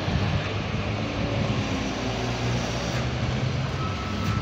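Street traffic at a city intersection: car engines running and passing, a steady low rumble.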